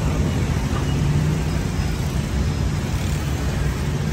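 Steady low rumble of road traffic, even and unbroken, with no distinct knocks or chops standing out.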